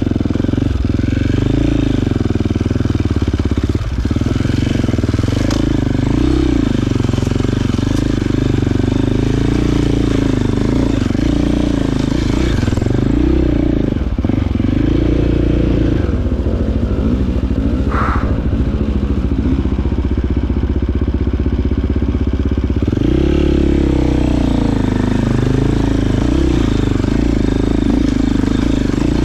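Enduro motorcycle engine running at low revs as the bike crawls up a rocky trail, the throttle rising and falling.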